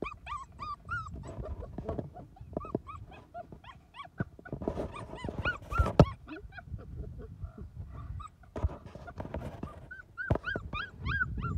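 Puppies whimpering and yipping: quick runs of short, high, arching cries, busiest near the start, in the middle and again near the end. A sharp knock about six seconds in is the loudest sound.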